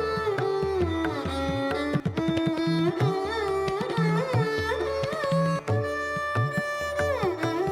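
Background music in Indian classical style: a sitar-like melody sliding between notes over tabla-like drumming.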